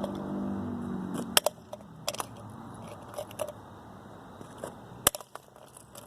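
Sharp knocks and clicks of a security camera's housing being struck and pried at to break it open. The loudest strikes come about a second and a half in, a pair about two seconds in, and one more near the end.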